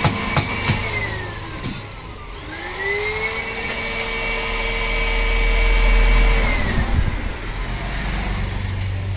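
Small electric motor whining as it spins: it winds down in the first two seconds, spins back up and runs steadily, then winds down again near the end. Sharp clicks come near the start and again as it slows the second time.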